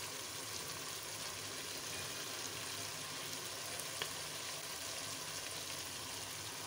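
Chicken pieces in oil and tomato masala sizzling and bubbling steadily in a karahi over medium heat, the bhuna (frying) stage of a chicken karahi. One faint click about four seconds in.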